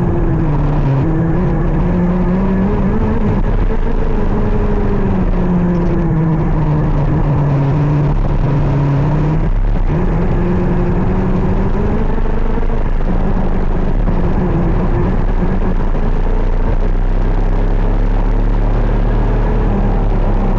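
KZ 125 shifter kart's 125 cc two-stroke engine running hard, its pitch rising and falling with the revs, with a brief break about halfway through.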